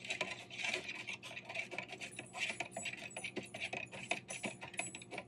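Metal spoon stirring coffee in a paper cup: a rapid, continuous run of scraping and light clicks against the cup's sides and bottom.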